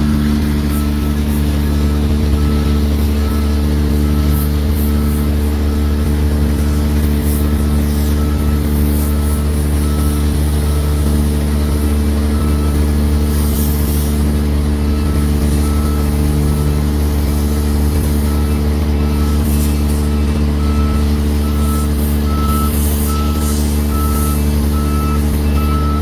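Excavator's diesel engine running steadily, with a warning alarm beeping about once a second.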